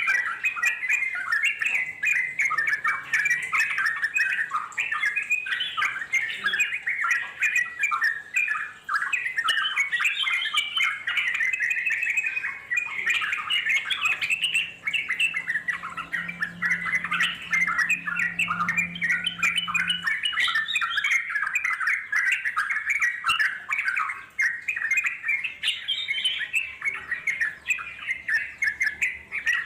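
Yellow-vented bulbuls chattering and singing in a dense, unbroken stream of quick bubbling notes, the long rolling song that bird keepers call ngeropel.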